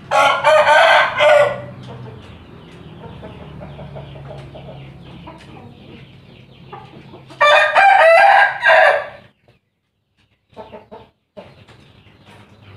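A rooster crowing twice, once at the start and again about seven seconds in, each crow about a second and a half long, with fainter chicken calls between.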